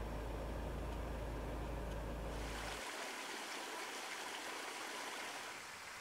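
Faint, steady rushing outdoor ambience. A low rumble underneath stops about three seconds in, leaving a brighter hiss.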